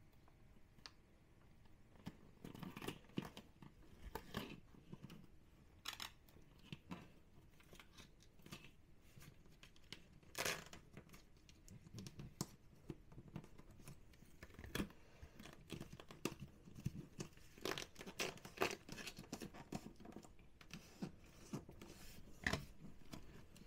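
Faint, intermittent crinkling, peeling and rustling as a flexible 3D peel-and-stick vinyl tile sheet is pressed and worked onto the wall by hand, with scattered small taps.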